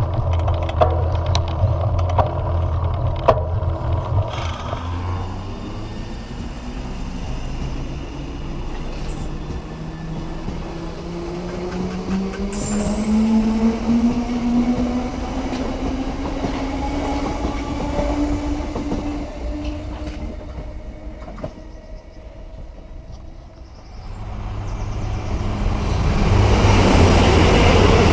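London Underground Bakerloo line train (1972 Stock) running along the platform, its wheels clicking over rail joints, then its motors whining up in pitch as it accelerates. Near the end a second train passes loudly on a farther track.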